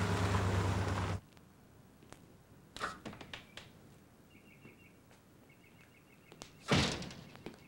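A car's electric power window motor whirs and stops abruptly about a second in. After it come a quiet background with faint bird chirps, a few light clicks, and a single loud thump near the end.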